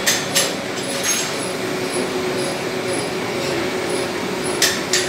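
Workshop machinery running with a steady hum and noise, with a few sharp metallic knocks near the start and again near the end.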